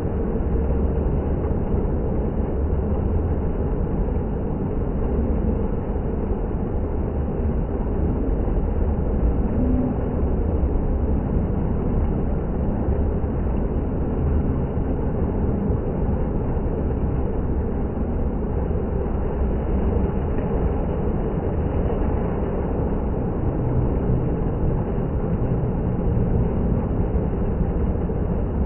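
Indoor water fountain running: a steady, unbroken rush of falling water with a heavy low rumble.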